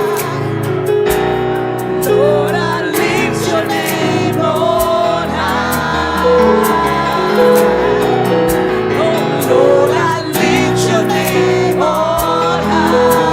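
Live gospel worship music: a choir singing over a band with bass, keyboard chords and drums.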